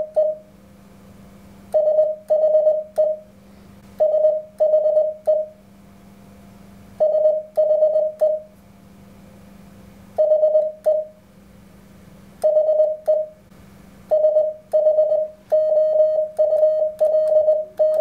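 Morse code sidetone from an Elecraft KX3 transceiver: one steady beep keyed in quick runs of short dits, sent in separate groups for all-dit letters such as H, I, S and 5, with a longer, denser run near the end.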